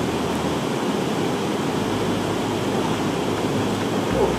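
Steady rushing noise of sea surf breaking on the shore.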